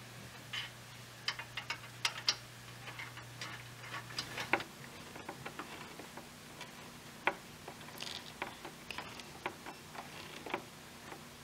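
Screwdriver turning the screw of a worm-drive metal hose clamp to tighten it around the intake snorkel: faint, irregular small clicks and ticks.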